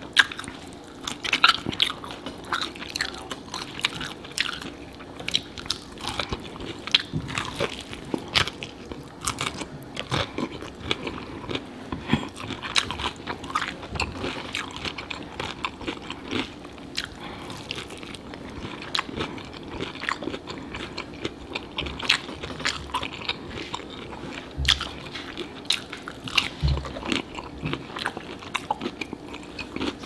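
Close-miked eating sounds: crisp fried chicken coating crunching under repeated bites, with wet chewing in between and many sharp crunches throughout.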